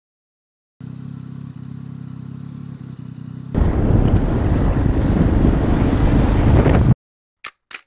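Motorcycle engine idling with a steady low hum. About three and a half seconds in, it cuts to much louder riding noise, wind rushing over the helmet microphone along with the engine, which stops abruptly near the end.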